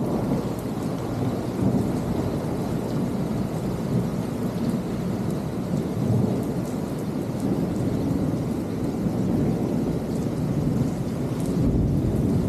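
Heavy storm rain pouring down steadily, a dense, even rushing noise.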